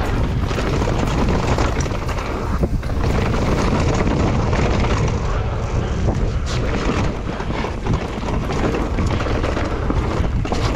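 Wind buffeting the microphone over the rumble and rattle of a mountain bike riding fast down a dirt trail, with scattered knocks from the bumps.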